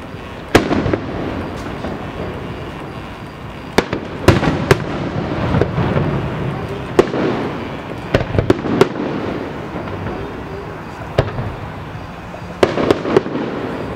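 Aerial fireworks shells bursting overhead: about a dozen sharp booms, each followed by an echoing rumble, some fired in quick clusters of two or three.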